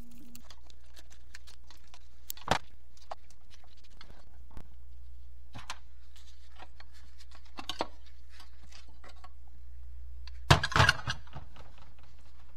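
Metal transmission parts and tools being handled on the bench: scattered light clicks and clinks, a sharp knock about two and a half seconds in, and a louder clatter of several knocks near the end, over a steady low hum.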